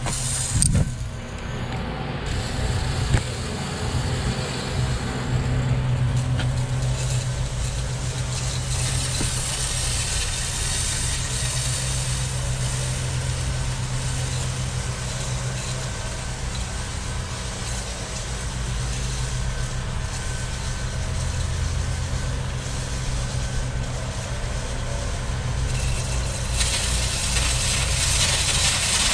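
Pancake air compressor running steadily with a low motor drone while it feeds air into sprinkler lines to blow them out. A hiss rises in the last few seconds.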